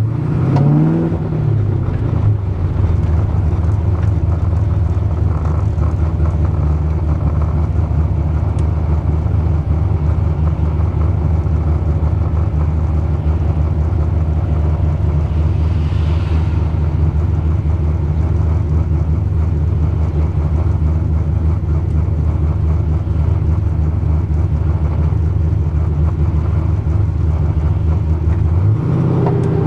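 LS6 V8 engine idling, with a quick rev up and back down about a second in and the revs starting to climb again at the very end.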